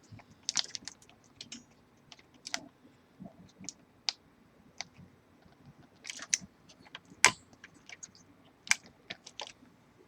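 Irregular light clicks and taps of computer parts being handled, the loudest about seven seconds in.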